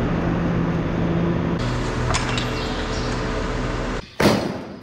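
A steady drone with a few held tones that shifts lower about one and a half seconds in, then a sharp metallic clink near the end as a cardboard box of steel plough pins is put down.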